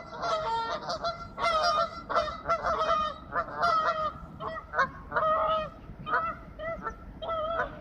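A flock of birds calling over and over, with many short calls that overlap one another.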